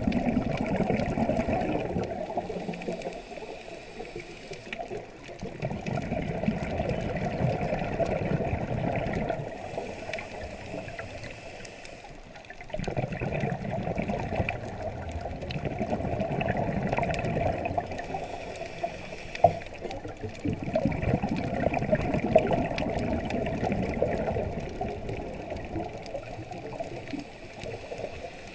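Underwater bubbling and gurgling from a scuba diver's regulator exhaust. Each exhalation gives a burst of bubbles several seconds long, and quieter inhalations fall between them in a slow breathing rhythm.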